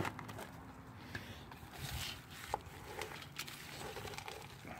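Wooden spoon stirring frozen mixed vegetables in a cast-iron Dutch oven: faint scraping with a few scattered knocks of the spoon against the pot.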